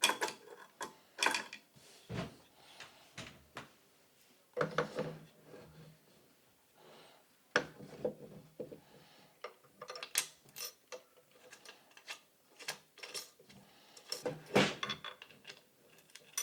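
Bolts with lock and flat washers being fitted and tightened with a hand tool into an office chair's seat mechanism: irregular metal clicks, taps and short scrapes.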